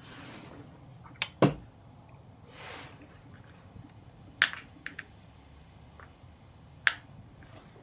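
A handful of sharp, isolated clicks, about six, the loudest about a second and a half in, with a soft breathy rush between them.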